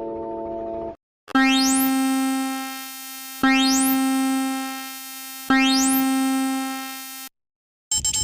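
Synthesized emergency-alert tones. A held chord of several steady tones cuts off about a second in; after a short gap one low, chime-like synth note sounds three times, about two seconds apart, each fading away with a quick rising sweep in its upper overtones. A new jumble of gliding alarm tones starts near the end.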